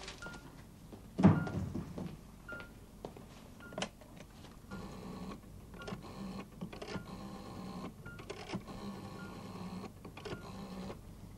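Rotary telephone dial being turned and whirring back digit by digit, in several runs through the second half. Throughout there is a short, high beep repeating a little under once a second from a patient monitor, and a loud thump about a second in.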